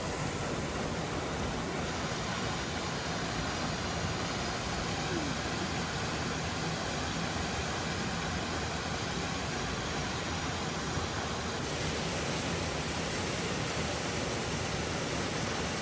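Steady rush of a waterfall, an even, unbroken noise of falling and churning water.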